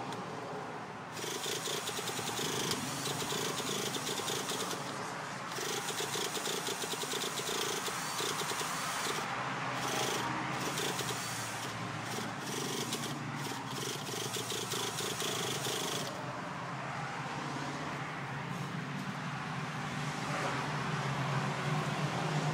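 Traxxas T-Maxx's small nitro engine being cranked over by its starter: a fast buzzing rattle in long spells with short breaks that never catches and runs. The engine won't start, a fault traced to a bad glow plug.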